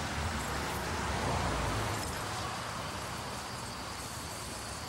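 A car driving past on the street, its rumble swelling and fading over the first two seconds, then a steady high trill of crickets from about halfway on.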